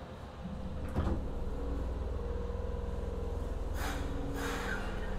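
Kobe Municipal Subway 1000-series train with Hitachi GTO-VVVF drive, heard from inside the car: a door thud about a second in, then a steady hum with a few level tones, and two short air hisses near the end.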